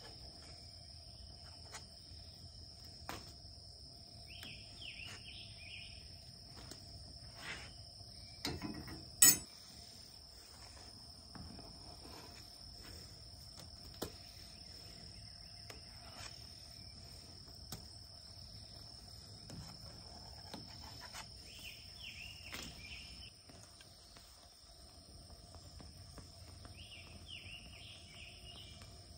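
Insects droning steadily with a high continuous tone, a few short bird chirps, and a low rush from the camp stove burner under a pot at a rolling boil. One sharp clack about nine seconds in is the loudest sound.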